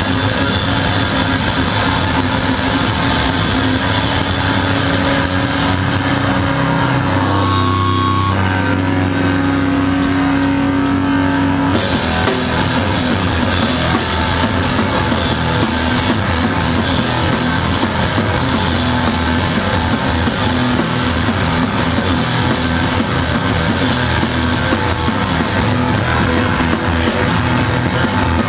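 Noise-hardcore band playing live and loud: distorted electric guitar over drums with constant cymbal crashes. About six seconds in the drums stop, leaving held distorted notes ringing for about six seconds, then the full band comes back in.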